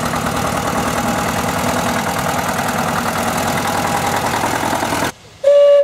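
Vintage farm tractor's engine running at low speed with an even firing beat as it drives past. The sound cuts off about five seconds in, and a loud, steady, high whistle starts just before the end.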